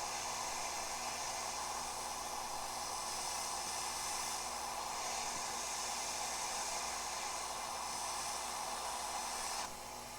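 Gaoyue 850 hot air rework station blowing a steady hiss of hot air from its nozzle while reflowing the solder under a RAM chip. The hiss drops off suddenly near the end, leaving a fainter hum.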